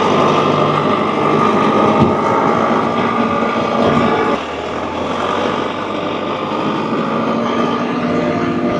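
Tractor engine running while it moves and packs loose dirt. A high steady whine rides over it and cuts out about four seconds in, where the engine sound drops a little.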